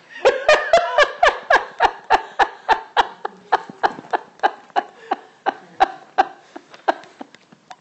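One person laughing in a long run of even ha-ha pulses, about four a second, loud at first and trailing off toward the end.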